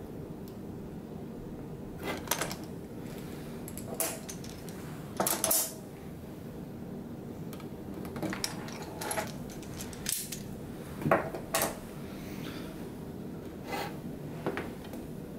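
Magnetic corner clamps being pulled off a glued plastic model building and set down: scattered sharp clicks and clinks of metal and plastic, about a dozen, with a short rattle about five seconds in.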